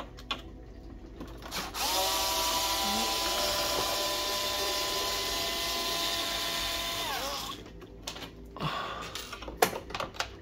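Cordless screwdriver running steadily for about five seconds, backing a housing screw out of a coffee machine; its motor whine drops in pitch as it stops. A few light clicks and knocks follow near the end.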